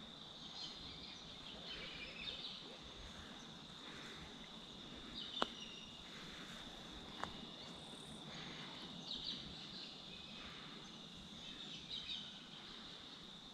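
Faint, steady high-pitched chirring of insects, likely crickets, in the evening, with scattered short chirps over it and two sharp clicks about five seconds in and again two seconds later.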